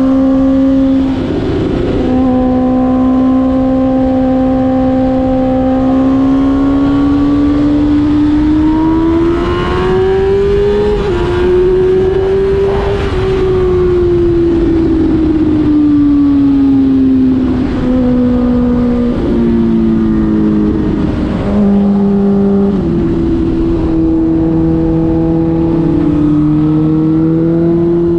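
Suzuki GSX-R1000 K5's inline-four engine cruising at highway speed through its exhaust with the dB killer removed. The engine note climbs gradually about ten seconds in and then eases off, and in the second half it drops and rises in a few quick steps with gear changes.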